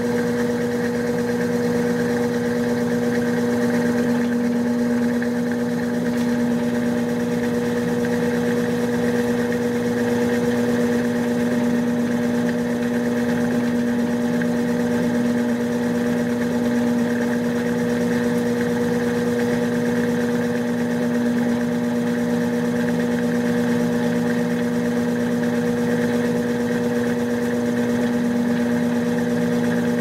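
Brastemp BWK16 16 kg top-load washing machine running mid-cycle with a steady, unbroken electric hum.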